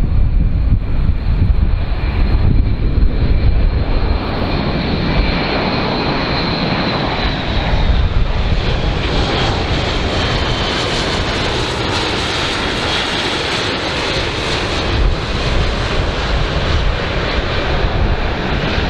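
Airbus A400M military transport's four turboprop engines with eight-bladed propellers on a low pass: a steady high whine that sinks slightly in pitch over the first half, over a propeller and engine rush that grows stronger past the middle. Wind rumbles on the microphone at the start.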